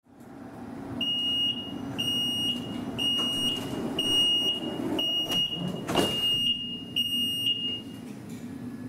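Light rail car's door-closing warning beeps: a steady high beep about half a second long, once a second, seven times, over the car's steady low hum. The doors shut with a thump about six seconds in.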